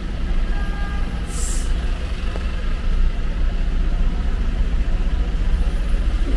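Steady low rumble of slow, queued city traffic, car and bus engines idling and creeping, with one short hiss about a second and a half in.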